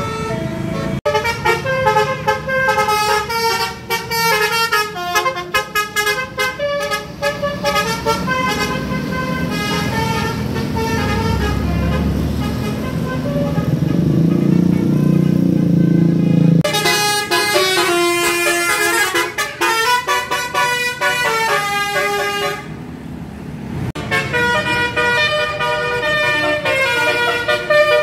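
Indonesian bus 'telolet' musical air horns playing quick melodic runs of honks, in several clips joined by abrupt cuts. A bus engine's low rumble swells under the horns in the middle.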